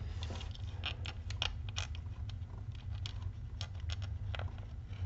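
Small screw being turned by hand with a screwdriver into a 3D-printed plastic enclosure: irregular clicks and scrapes of the bit and screw, over a steady low hum.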